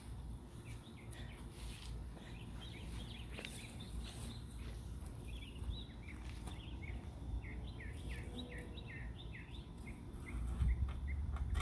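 A bird chirping in a long series of short, quick, downward-sweeping chirps that come faster in the second half. A low rumble rises near the end.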